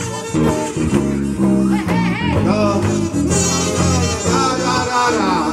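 Several voices singing a doo-wop song together into one microphone over instrumental accompaniment with a steady bass line and guitar.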